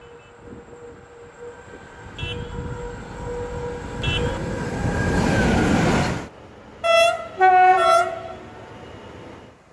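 A train running by with a rumble that builds for about six seconds, two short high squeaks in it, then cutting off suddenly. A train horn then sounds twice: a short blast, and a longer one that shifts in pitch partway through.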